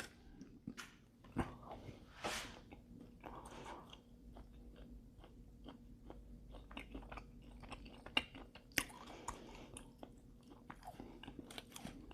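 Close-miked chewing of hot and spicy beef jerky: faint, irregular wet mouth clicks and chewing sounds.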